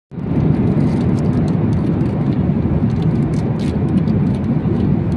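Steady low rumble of a jet airliner cabin in cruise flight, with a few faint ticks on top.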